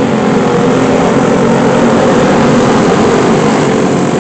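Several racing go-kart engines running as the karts go by on the track, swelling slightly about two seconds in.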